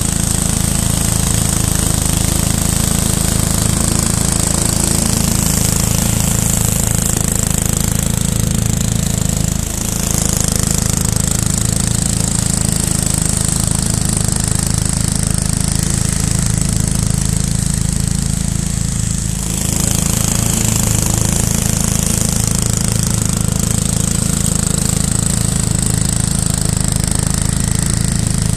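Ransomes 36-inch walk-behind mower running under load, its engine and blade working steadily through very dense, matted field grass. The level dips briefly twice.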